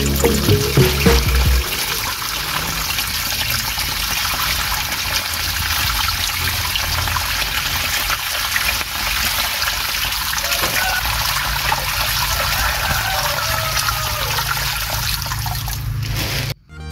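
Water trickling and splashing steadily from a small pump's outlet into a miniature pond. It cuts off suddenly near the end.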